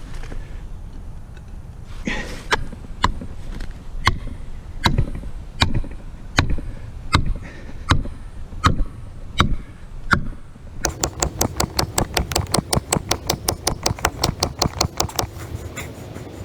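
Repeated hammer blows driving a felling wedge into the cut of a tree, one sharp strike about every three-quarters of a second. Near the end comes a faster run of taps, about eight a second.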